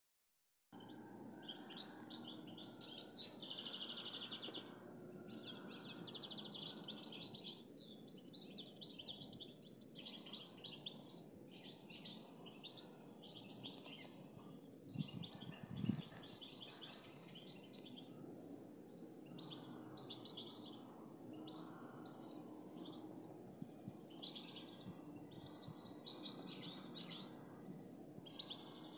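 European goldfinch singing: phrase after phrase of rapid, high twittering with short pauses between. There is a brief low thump about halfway through.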